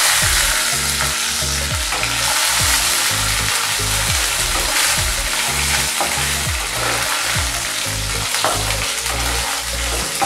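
Hot oil sizzling steadily around green chillies, garlic, cumin seeds, hing and dried red chillies frying for a tadka in a non-stick kadhai, stirred with a wooden spatula.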